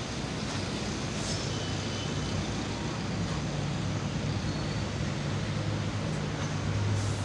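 Steady background rumble and hiss with a low hum, growing slightly louder near the end.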